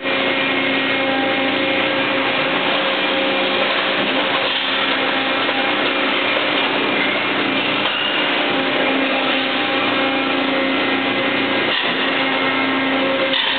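Injection-molding machinery running on a plastics factory floor: a steady mechanical hum with several constant tones, and a faint knock near the end.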